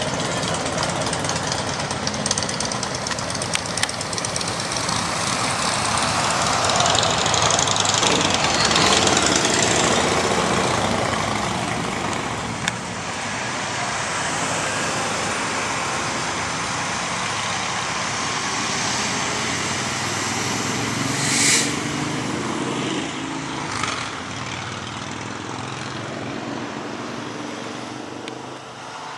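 Road traffic of motorcycles, pickups and a truck towing a trailer, engines running as they pull out and pass. The noise is steady, with two brief sharp high sounds near the end.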